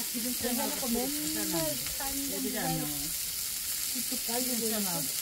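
Pork neck and belly sizzling on a hot grilling stone, a steady hiss, with people talking quietly over it.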